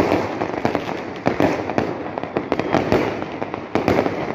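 Fireworks going off in a dense, continuous barrage of bangs and crackles, with louder bangs standing out at irregular moments.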